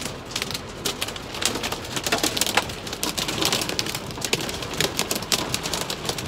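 Hail and heavy rain pelting a car's roof and windshield, heard from inside the car: a dense, irregular patter of sharp ticks over a steady hiss.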